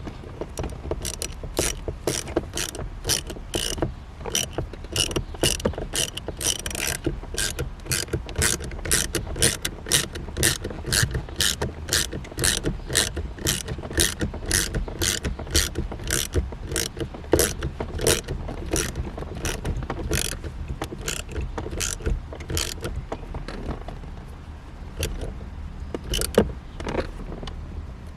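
Hand ratchet on an extension clicking steadily, about two to three clicks a second, as it turns down a shifter-stick bolt. The clicking thins out to a few scattered clicks near the end.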